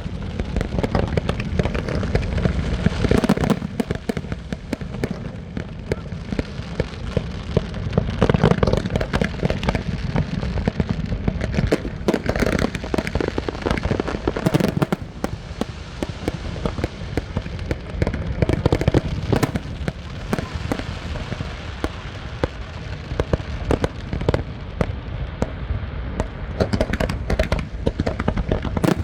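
Fireworks display: a continuous barrage of bangs and crackling, with louder clusters of bursts every few seconds.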